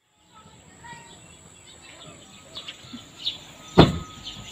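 Quiet outdoor ambience with a few faint bird chirps, and a single sharp click near the end as a car door is pulled open.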